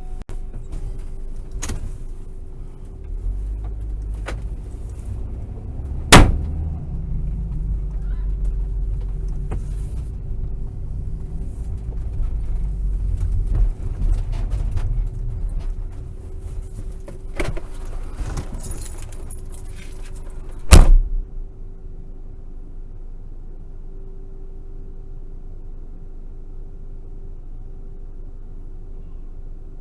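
Two loud bangs on the locksmith's van body, heard from inside the closed van and about fifteen seconds apart, over a low rumble and a faint steady hum from the van.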